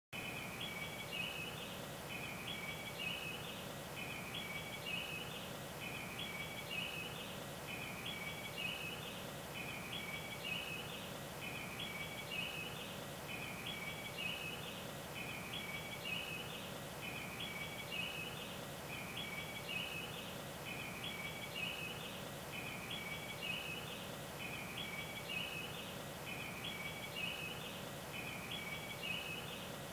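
A short chirping call repeats at an even pace, about once every two seconds, over a steady low hum.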